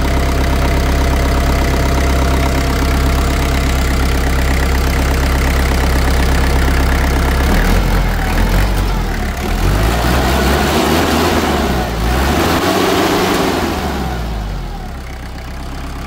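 Kubota KL380 tractor's naturally aspirated four-cylinder diesel engine idling steadily, then from about halfway through its speed wavers and rises and falls as the throttle is worked, settling again near the end.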